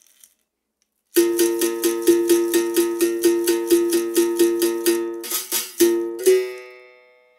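Berimbau's steel wire struck rapidly with the stick, the gourd resonating: an even run of about five strokes a second on one note for several seconds, then a brief rasping buzz of the wire and a last stroke left to ring and fade.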